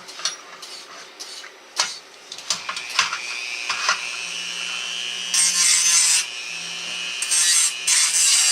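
A small handheld power tool cleaning up a part of a tin toy biplane. A few clicks of handling come first; about two seconds in the motor starts and runs with a steady high whine, and from about halfway there are several bursts of harsh scraping as it is pressed to the metal.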